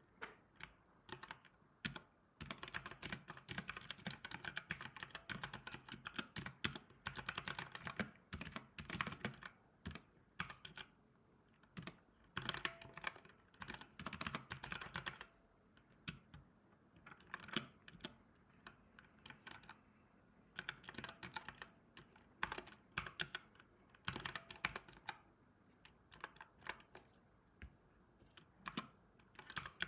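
Typing on a computer keyboard: runs of rapid key clicks broken by short pauses.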